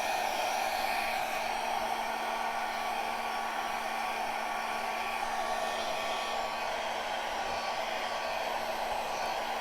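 Small travel hair dryer running steadily, blowing poured acrylic paint across a canvas.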